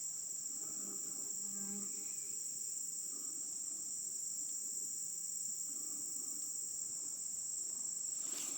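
Steady, high-pitched chorus of field insects.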